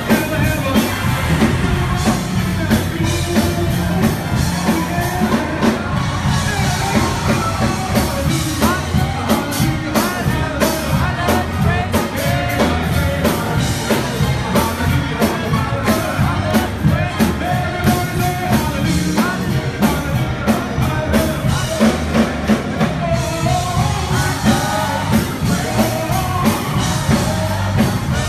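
Live church praise band playing with a steady drum-kit beat and keyboard, and voices singing over it.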